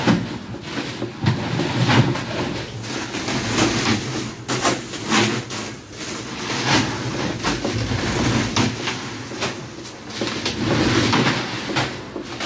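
Heavy plastic sacks of ice being dropped, thrown and slid onto a wet floor: repeated thuds and knocks with crunching ice and rustling plastic.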